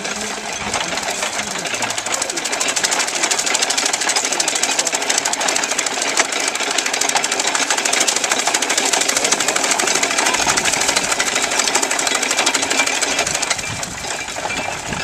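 Belt-driven corn chopper (fodder cutter) powered by an animal treadmill, running with a fast, even mechanical clatter as corn stalks are fed into its knives. The clatter is louder through the middle and eases near the end.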